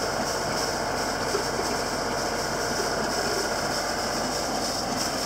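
Sailboat's inboard diesel engine running steadily while motoring under way, mixed with the rush of wind and water past the boat.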